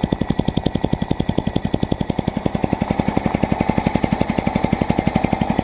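Lawnmower petrol engine running steadily at a raised idle, its revs just set higher with the carburettor's adjusting screw. It gives an even, rapid firing beat of about a dozen pulses a second.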